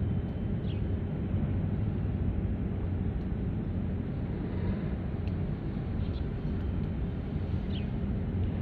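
Steady low rumble of outdoor ambience, with a few faint short high chirps about a second in and near the end.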